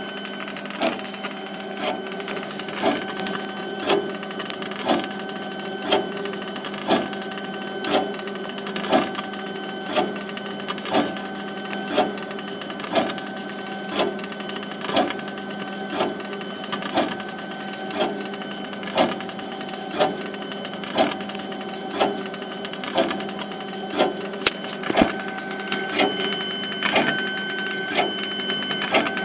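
Desktop laser engraver's stepper-driven head sweeping back and forth as it engraves wood, with a sharp click about once a second as the head reverses, over a steady machine hum.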